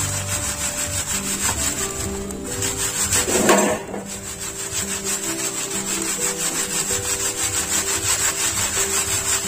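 Rhythmic gritty scraping and rubbing of soil being worked by hand for a potting mix, with one louder scrape about three and a half seconds in. Background music plays steady held notes underneath.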